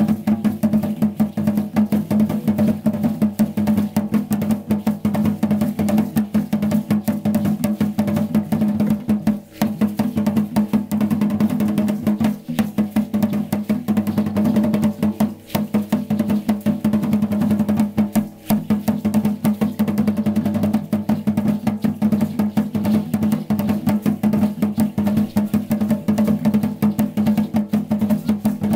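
Tall upright drums beaten with sticks in a fast, driving dance rhythm that runs without a stop, except for three very short breaks in the middle.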